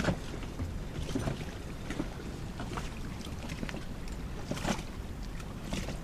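Wind on the microphone and water lapping against the hull of an anchored sailing yacht, a steady low rush with a few faint knocks.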